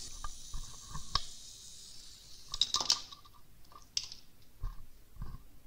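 A few light clicks and soft knocks, scattered and irregular, over a faint hiss that dies away in the first second or so.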